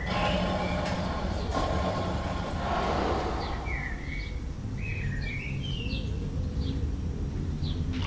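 Outdoor ambience with a steady low rumble throughout. Over the second half, a bird chirps in a quick series of short notes.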